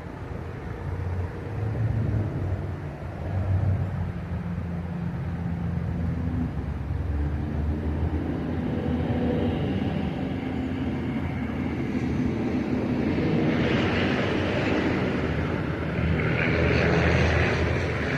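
A large engine running, its pitch rising and falling as it is revved, with a rushing noise building up over the last few seconds.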